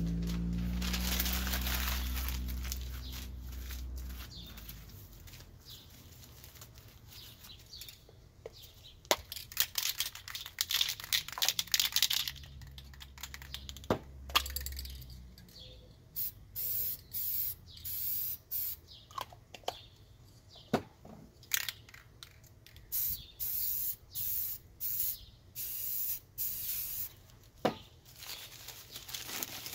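Aerosol spray paint cans hissing: a longer spray over a low rumble in the first few seconds, then many short spray puffs in a regular run of about one a second, with scattered clicks between.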